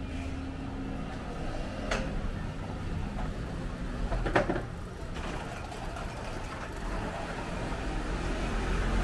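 City street ambience: a steady low traffic rumble, with two sharp knocks, one about two seconds in and a louder one just past four seconds.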